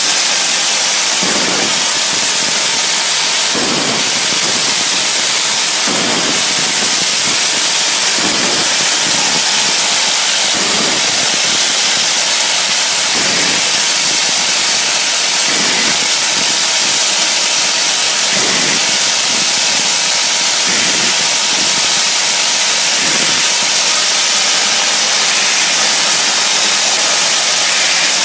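Automated pneumatic hinge-assembly machine running: a steady loud hiss of machine noise, with a dull stroke about every two and a half seconds as it cycles.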